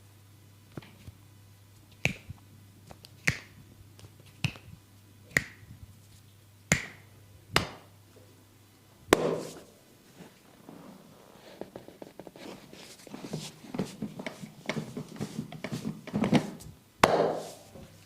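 Hand massage on the body: a string of single sharp slaps about a second apart, then a run of quicker softer patting and rubbing, and a final loud slap near the end.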